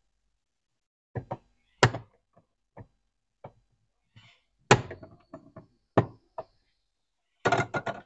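Flat-blade screwdriver prying at the plastic lamp cover inside an Electrolux DF46 refrigerator: a string of sharp plastic clicks and knocks, the loudest about two, five and six seconds in. A quick run of clicks comes near the end as the cover comes open.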